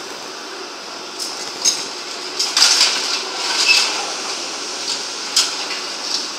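Caterpillar 0.45 m³ backhoe running steadily while its SAKATO Cosmo 1300V secondary crusher works broken concrete and rebar: a run of sharp metallic clanks and scraping, densest between about two and four seconds in, with another clank near the end.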